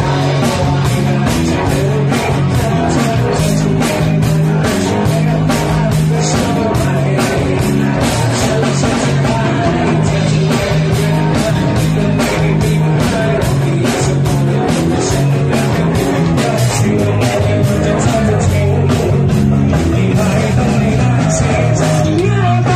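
Live rock band playing: electric and acoustic guitars over a bass line and a steady drum beat.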